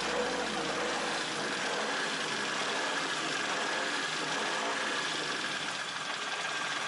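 Turbocharged drift car engine running steadily under the open hood, with a faint steady high whine over the engine noise.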